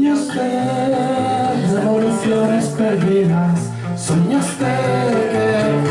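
A man singing live while accompanying himself on an acoustic guitar.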